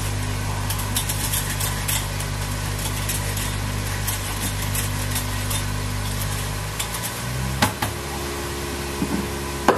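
A steady low mechanical hum, like a small motor or fan, which changes to a different, higher hum about seven seconds in. It comes with a few scrapes and clicks from carrots being grated by hand.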